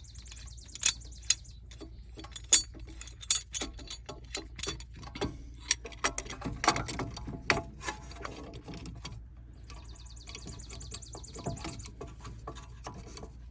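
Metal clicks and knocks of hand tools as a C-clamp is fitted onto a car's rear brake caliper, with two stretches of rapid fine ticking, one at the start and one about ten seconds in.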